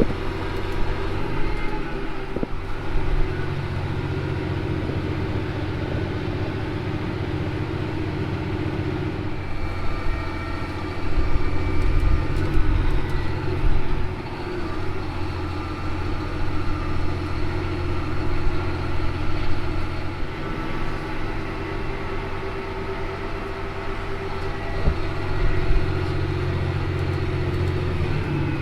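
Versatile 365 tractor's engine running steadily under load while pulling a grain cart, a continuous low hum that grows louder for a few seconds about a third of the way in and again near the end.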